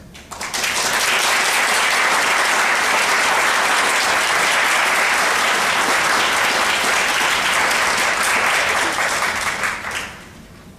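Audience applauding, breaking out about half a second in, holding steady, and dying away quickly near the end.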